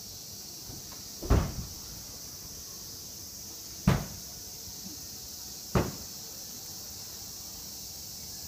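Three heavy thuds of a person being thrown onto a wooden stage floor in a jujutsu demonstration, about a second in, again near four seconds and near six seconds. A steady high insect hiss runs underneath.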